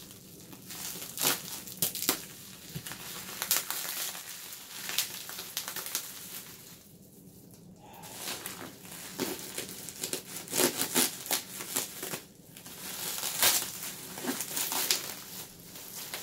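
Bubble-wrap packaging being crumpled, cut and pulled off a vacuum cleaner: irregular crinkling and crackling, with a short lull about seven seconds in.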